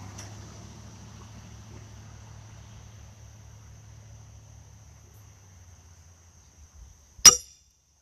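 A pitched steel horseshoe lands with one sharp metallic clang about seven seconds in. Before it, a faint low hum fades away under a thin steady high tone.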